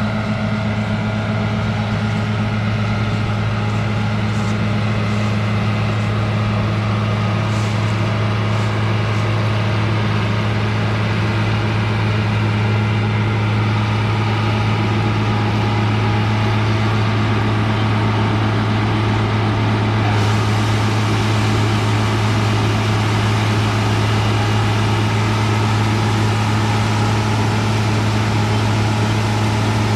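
Combine harvester's diesel engine running at a steady speed: a loud, even, deep hum that does not change.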